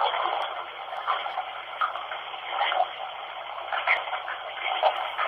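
Running water: a steady rushing hiss with small irregular spikes.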